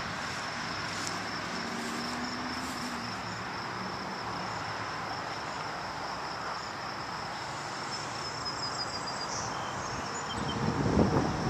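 Steady high-pitched insect chirring over a wash of distant traffic noise. Near the end, wind starts buffeting the microphone.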